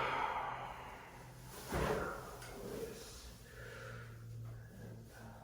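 A patient breathing out, then a single sharp thud about two seconds in as the chiropractor delivers the adjustment thrust to the spine on the treatment table.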